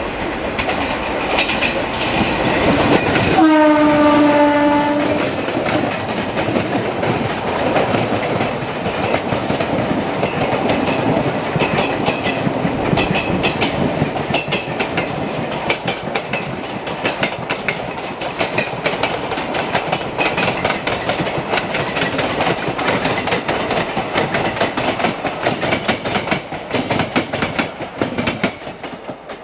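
WAP4 electric locomotive sounding a single horn blast of about a second and a half as it approaches. Its passenger coaches then run past close by, with steady wheel noise and a rapid clickety-clack of wheels over rail joints that fades near the end.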